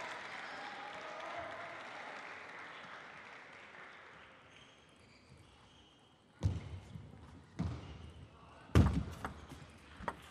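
Table tennis play: three loud thumps a little over a second apart, then the quick clicks of a rally as the celluloid ball is struck by rackets and bounces on the table near the end.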